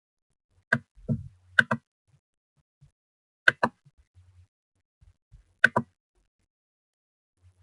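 Computer mouse clicks: four sharp clicks a second or two apart, most of them a quick press-and-release double, as the presenter switches browser tabs and starts a slideshow.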